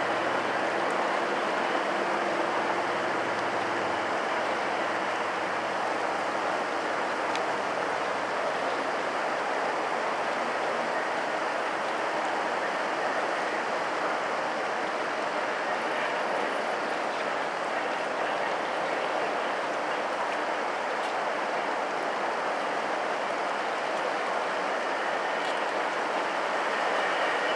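Steady, even rolling noise of a long freight train of covered grain hopper cars passing at a distance, wheels running on the rails.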